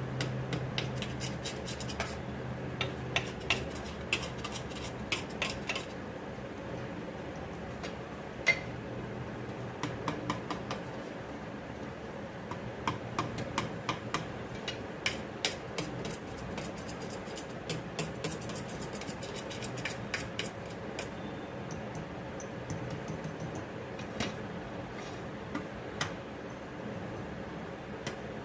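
Metal utensils clinking and scraping against kitchen cookware in scattered, irregular taps, over a faint steady hum.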